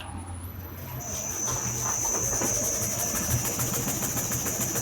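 RuidCar suspension-testing vibration platform starting up and shaking the front wheels of a 2007 Toyota Corolla: a steady high whine comes in about a second in over a fast, even rattle and a low hum. The shaking brings out a knock from the front shock absorber, which the mechanic puts down to a poor-quality replacement shock kit.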